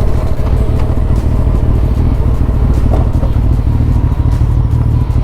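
Suzuki Hayabusa's inline-four engine running steadily on the move, with a heavy low rumble that holds level and no sharp revving.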